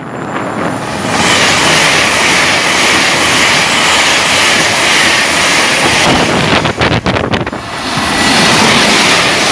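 Great Western Railway Hitachi Intercity Express Train passing at speed close by: a steady, loud rush of wheels and air. About six seconds in the sound breaks up and drops away briefly, then rises again as the next train approaches.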